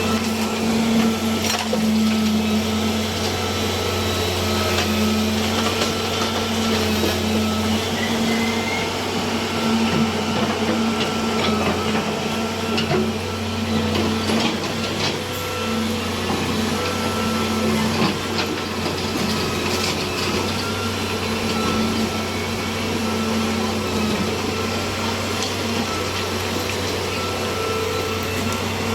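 Road cutting machine running steadily: a constant motor hum with a whining tone over it, and scattered sharp clicks.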